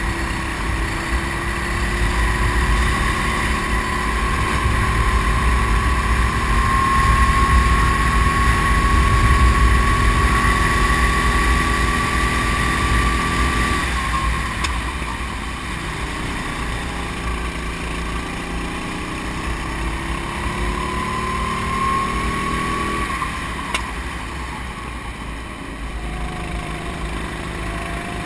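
Kart engine running flat out, its pitch climbing steadily and falling away sharply twice as the throttle is lifted for corners, over wind buffeting the onboard microphone.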